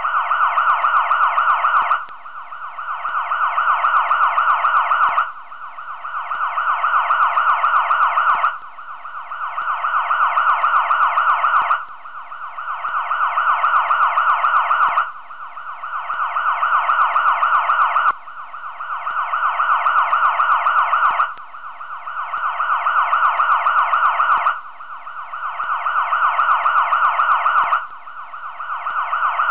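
An electronic siren-like warbling tone, looped on the soundtrack. It repeats in identical cycles about every three seconds, each one swelling louder and then breaking off.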